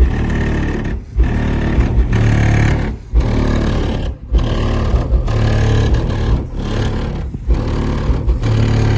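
Music played loud through a car stereo, with a Skar 12-inch SDR subwoofer pounding out deep bass in a steady beat that drops out briefly every second or so.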